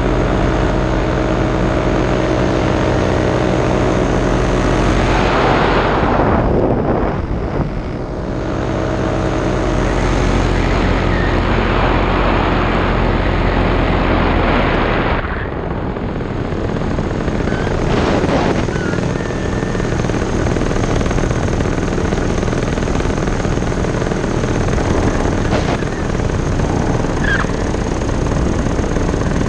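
Paramotor engine and propeller running steadily in flight, heard close from the pilot's rig; the sound dips briefly twice.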